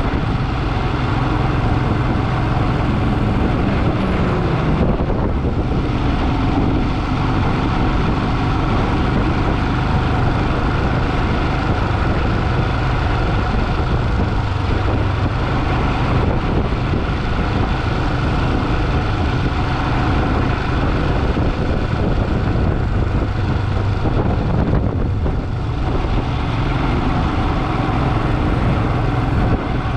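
Motorcycle engine running steadily while riding, under a steady rush of road and wind noise.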